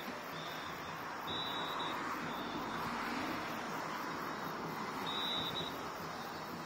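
Motor scooter engine running as it rides up the street, over a steady haze of street noise, with short high-pitched tones sounding several times.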